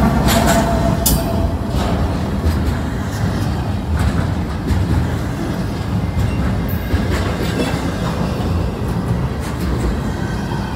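Double-stack intermodal freight cars passing close by: a steady low rumble of steel wheels on the rails with occasional sharp clicks.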